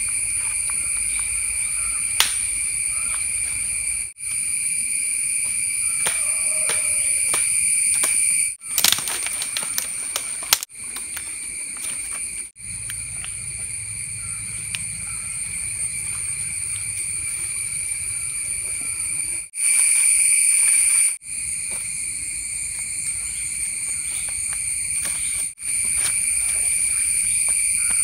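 Steady, shrill insect chorus in tropical forest, cutting off abruptly a few times as short clips change. Over it, dry leaves and twigs crackle under handling and footsteps, most densely about nine to ten seconds in.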